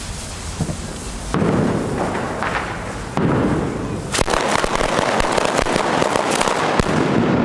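Ground firework going off on pavement: a loud rushing hiss starts about a second in and steps up louder, then fills with rapid sharp cracks.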